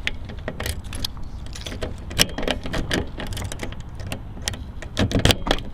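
Car key being jiggled and worked in the jammed driver's door lock of a 2005 Honda Civic: a run of irregular metallic clicks and rattles. The lock stays stuck even with pencil graphite packed inside.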